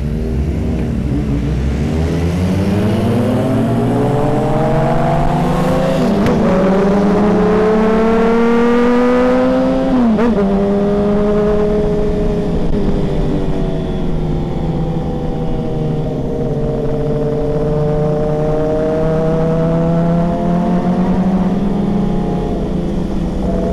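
Motorcycle engine under way, its pitch climbing steadily for about ten seconds, then a quick dip at a gear change, after which it runs fairly steady with gentle rises and falls in revs.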